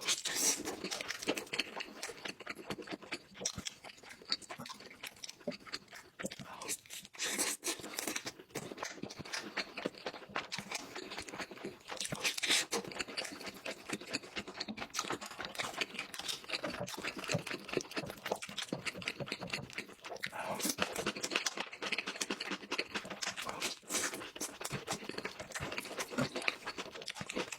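Close-miked eating: chewing and crunching food, with many small clicks throughout.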